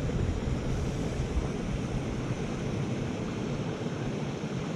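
Steady rushing noise of running stream water, with wind buffeting the microphone as an uneven low rumble.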